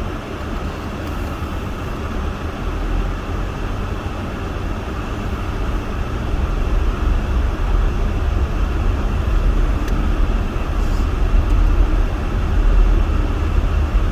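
Steady rumble of a van driving, heard from inside the cabin, with a constant hiss above it; it grows a little louder about six seconds in.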